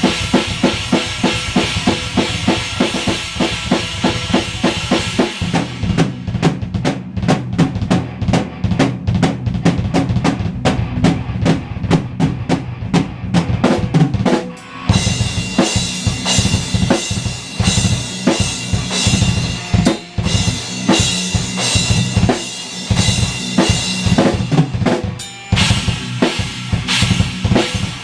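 A drum kit played fast and hard in a metal style: kick and snare under a cymbal wash for the first few seconds, then several seconds of tight rapid strokes with the cymbals dropped out, then the cymbals come back in for the rest.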